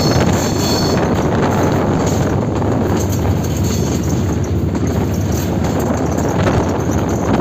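Locomotive running light along a curve: a steady wheel-on-rail and engine rumble with a rattling clatter. A thin high squeal from the wheels on the check-railed curve fades out about a second in.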